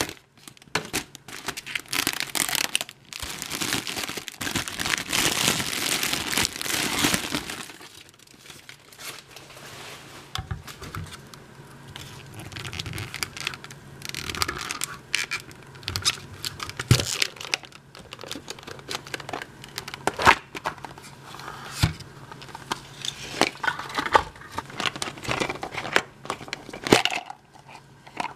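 Foil wrapper of a jumbo Kinder Surprise Maxi egg crinkling and tearing as it is peeled off, for about the first seven seconds. After that come scattered clicks and taps of plastic being handled, as a clear plastic shell and a yellow plastic toy capsule are worked open.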